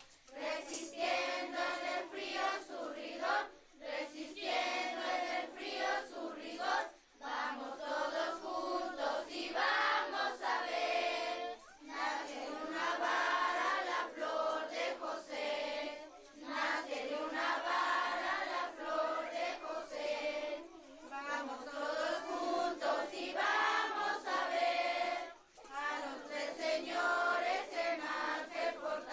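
A group of children and adults singing a posada song together, in phrases of a few seconds with brief breaks between them.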